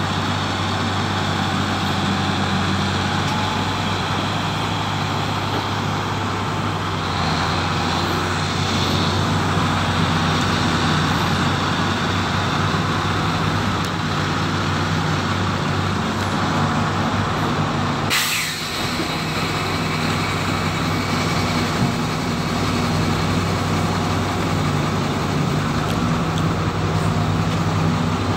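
Heavy diesel earthmoving machinery running steadily: a crawler bulldozer and a Sumitomo SH210 hydraulic excavator at work. A single brief, sharp noise comes about eighteen seconds in.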